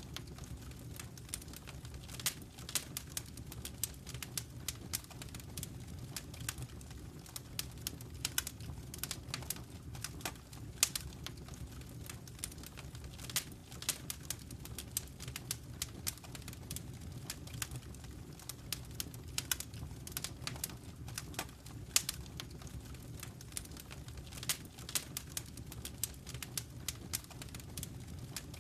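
Fire in a fireplace crackling: irregular sharp pops and snaps, several a second, over a low steady rumble.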